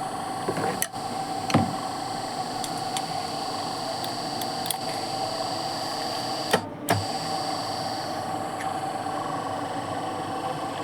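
Electric valve actuator with a newly replaced motor running under power: a steady motor and gearbox hum with a high whine that fades about eight seconds in, and a few sharp clicks.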